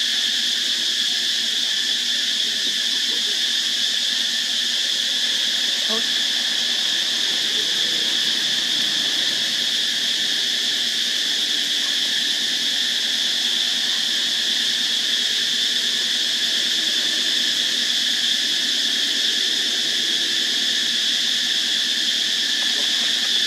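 Steady, unbroken high insect drone, with a few faint short calls underneath, one about six seconds in and a couple near the end.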